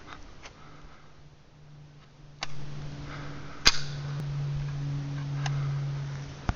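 Three sharp .22 rifle shots, the middle one loudest, with a few fainter clicks between them and a low steady hum underneath.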